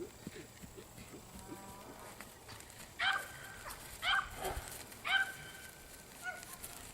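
An animal calling three times, about a second apart: short, high-pitched calls over faint background noise.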